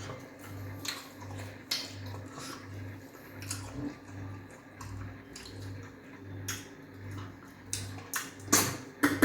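Wet eating sounds of fufu and soup eaten by hand: scattered smacks, squelches and light clinks of a plate, louder near the end. Under them runs a low hum that pulses a little faster than once a second.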